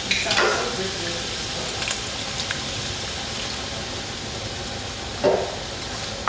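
Steady sizzling hiss of ground meat and vegetables cooking in a pan on a stovetop, with two short sounds, one just after the start and one about five seconds in.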